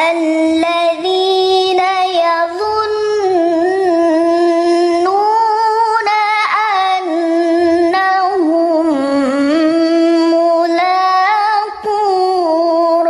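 A child's high voice reciting the Qur'an in a melodic, drawn-out tajwid style, holding and ornamenting long notes in one continuous phrase. There is a short breath near the end.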